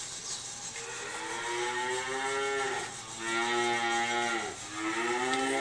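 Cattle mooing: three long moos in a row, each one dropping in pitch as it ends.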